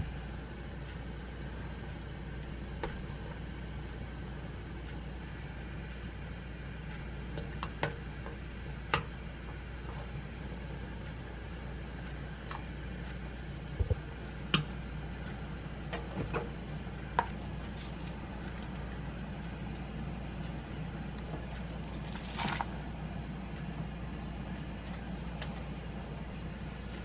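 Steady low kitchen hum from a pot simmering on a gas stove, broken by a dozen or so short taps and clinks of a wooden spoon against the pot as soybean paste, minced garlic and cabbage are added.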